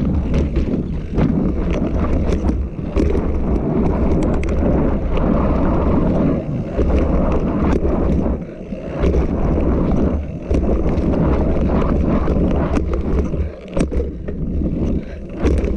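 Mountain bike ridden fast on a dirt trail, heard from a camera on its handlebars: wind rushing over the microphone and tyres rolling, with many sharp knocks and rattles from the bike over bumps and wooden boards.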